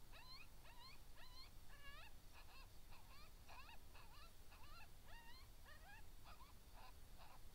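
Faint chorus of coyotes yipping: many short rising-and-falling yelps overlapping, several a second.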